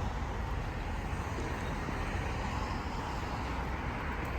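Steady running noise of a moving vehicle, an even low rumble with hiss above it and no separate events.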